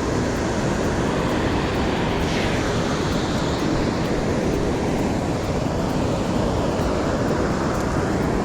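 Ocean surf washing up on a beach, a steady roar with a swell of breaking wash about two seconds in, with wind rumbling on the microphone.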